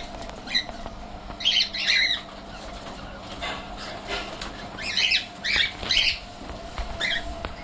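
Birds giving short, high chirps, some single and some in quick pairs, with pauses of a second or more between them.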